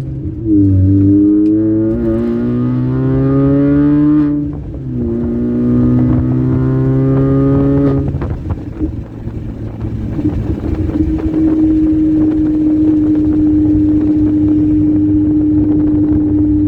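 Supercharged four-cylinder engine of a 2004 Mini Cooper S with a Sprintex supercharger, pulling hard with a rising note, a brief break about four seconds in, then rising again. About eight seconds in the note stops climbing and turns rough, then settles into a steady cruising drone.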